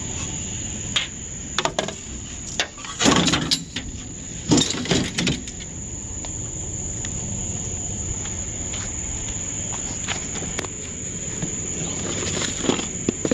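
Steady high drone of insects. Over it come loud clattering and scraping about three and five seconds in, as a ceiling fan is handled and put into a pickup bed, and a shorter rustle near the end.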